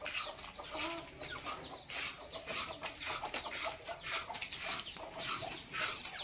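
Chickens clucking, a run of short calls one after another.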